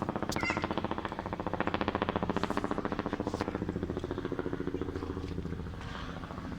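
Helicopter flying by, its rotor blades beating in a fast, even pulse that is loudest about two seconds in and then fades.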